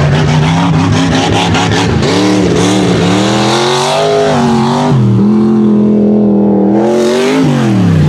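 Rock bouncer buggy's engine revving hard, its pitch climbing and falling several times as the throttle is worked, then dropping sharply near the end as the throttle is let off before picking up again.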